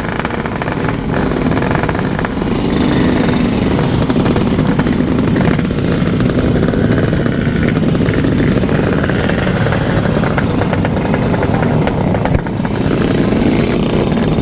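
Yamaha RX-King's single-cylinder two-stroke engine running steadily while the motorcycle is ridden, its pitch drifting up and down a little.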